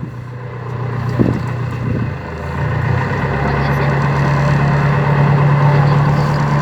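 Motorboat engine running steadily, then speeding up between two and three seconds in, its hum rising in pitch and growing louder, over a rush of wind and water noise.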